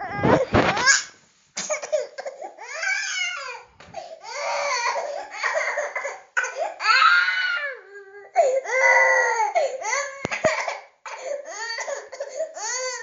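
Baby crying angrily in a series of high-pitched cries, each one to two seconds long, with short breaks for breath between them.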